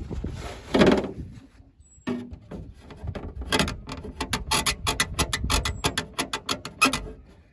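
A brief rustle, then a fast run of sharp mechanical clicks and rattles, about four or five a second, for several seconds.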